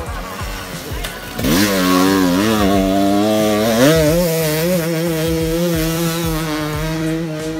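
Dirt bike engine accelerating hard at high revs. Its pitch climbs sharply about a second and a half in and again near four seconds, holding high in between.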